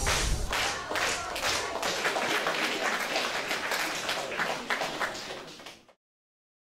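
Audience applauding, many hands clapping quickly and unevenly. It gradually gets quieter and cuts off shortly before the end.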